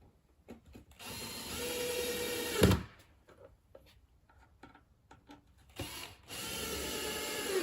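Power drill driving screws into the drawer panels, two runs of a couple of seconds each; the first ends in a sharp knock as the screw seats.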